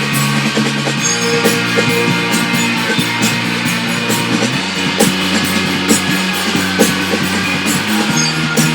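Dream-pop/shoegaze rock music: guitars over drums, with the low chord changing about every three and a half seconds.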